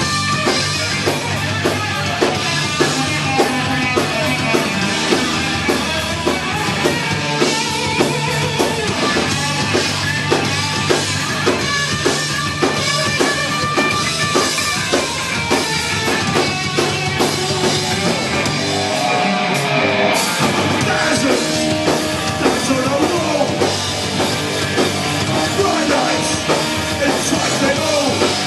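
Punk rock band playing live: distorted electric guitar over a fast, driving drum kit, loud and steady, heard from among the audience.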